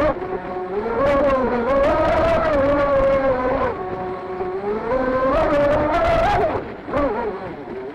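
Electric motor and submerged prop of a 38-inch RC boat whining under power, the pitch rising and falling several times as the throttle changes, with water slapping and spraying against the hull.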